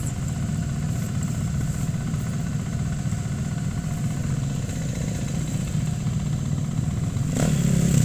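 Engines of several off-road 4x4s idling together at a start line, a steady low hum that grows a little louder near the end.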